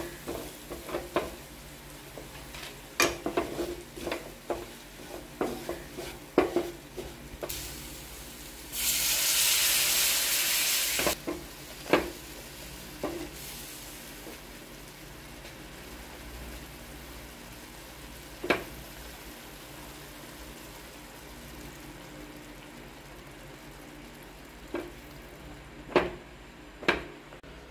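A spatula stirring and scraping fried masala in a frying pan, with frequent knocks against the pan at first and a few more later. About nine seconds in, a loud sizzling hiss lasts about two seconds as water hits the hot masala and turns it into gravy.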